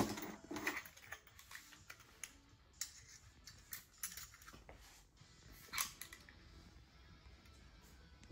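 Irregular light clicks and taps, a dozen or so spread unevenly, with a louder knock at the start and another about six seconds in.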